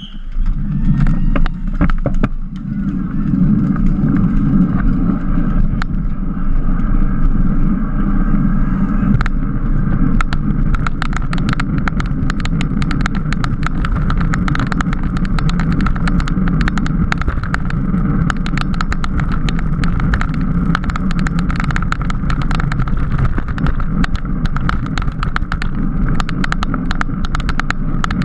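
Wind rushing over a camera mounted on a road bike's handlebars, with road rumble from the tyres as the bike rides at racing speed. From about ten seconds in, a dense patter of sharp rattling clicks from road vibration comes through.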